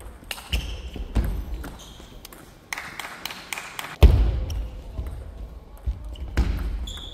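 Table tennis rally: the ball clicks sharply off the rackets and table about every half second, with dull footfall thuds underneath and a heavier thud about four seconds in.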